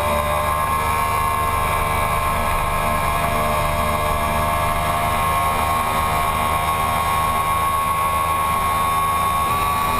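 2009 Yamaha YZF-R1's crossplane inline-four engine running at high revs on steady throttle through a long corner, its pitch holding nearly level and creeping slowly upward.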